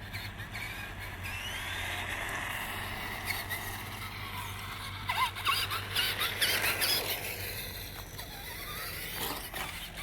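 Radio-controlled car's motor whining, its pitch rising and falling as it speeds up and slows, loudest a little past the middle.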